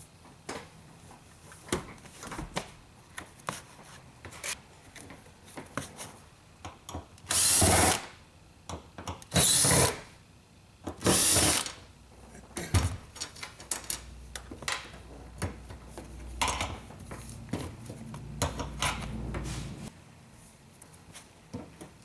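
A cordless drill-driver runs in three short bursts of about a second each near the middle, amid scattered knocks, clicks and rustling as the rear seat and floor carpet are handled.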